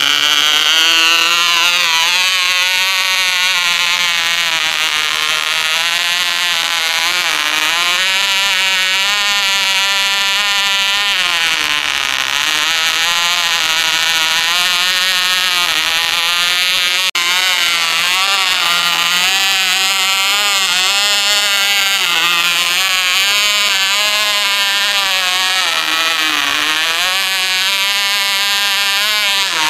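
Vintage OK Cub .049 two-stroke glow engine running at full throttle, a loud high buzz whose pitch wavers unevenly up and down and sags twice. The uneven running fits the over-rich mixture the fliers had found with the nose down.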